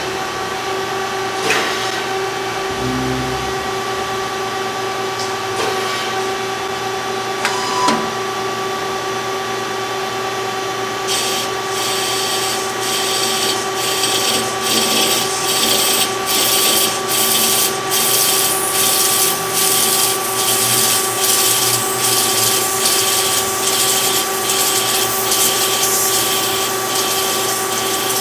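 CNC machine tool running with a steady hum and whine of several tones. Partway through, a loud, rapidly fluttering hiss of the tool cutting starts and keeps on.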